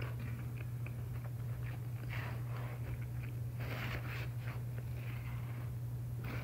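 A person chewing a mouthful of pizza close to the microphone: soft, irregular mouth sounds a few times over a steady low hum.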